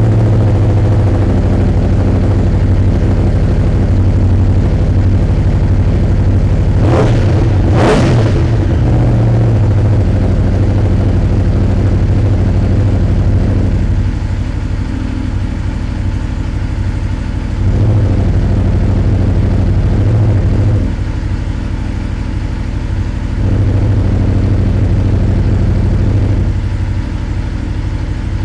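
Aprilia Tuono V4 engine idling just after a start, exhaust flapper valve open, with two quick throttle blips about seven and eight seconds in. Later the exhaust note drops noticeably quieter three times and comes back between them, as the flapper valve is held closed by hand and released.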